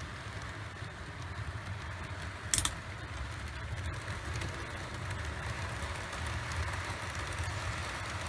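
00 gauge model train running along the layout's track with a steady low hum and rattle of motor and wheels. One sharp click comes about two and a half seconds in.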